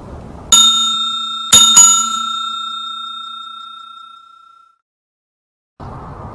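A bell sound effect rings three times: once, then twice in quick succession about a second later, each ring fading out over about three seconds. It is dubbed in, and the outdoor background sound cuts out around it.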